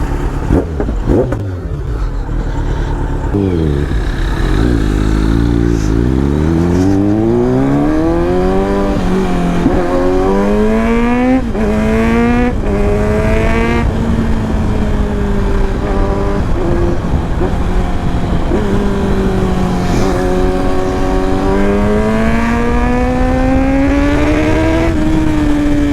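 Kawasaki Z900's inline-four with a Leo Vince aftermarket exhaust, accelerating hard through the gears. The engine note climbs steeply, with quick upshifts dropping the pitch about 11, 12 and 14 seconds in, then holds steady before climbing gently again near the end.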